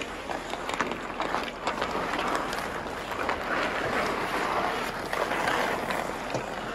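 Ice hockey skates scraping and carving across outdoor rink ice, with scattered sharp clacks of sticks on the puck and ice. The scraping swells near the middle.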